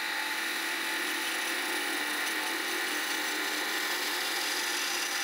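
Wood lathe running while a turning tool cuts the spinning goblet blank: a steady hiss of the tool on the wood over the motor's hum, easing off near the end.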